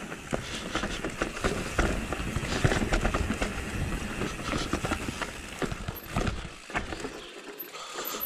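Mountain bike tyres rolling over a rocky, dusty forest trail, with frequent knocks and rattles as the bike hits stones. The low rumble drops away about two-thirds of the way through as the bike slows.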